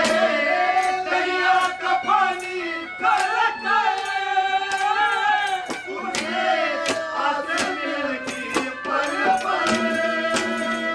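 Instrumental interlude of live Haryanvi ragni folk music: a steady held drone with a bending melody over it and sharp percussion strokes.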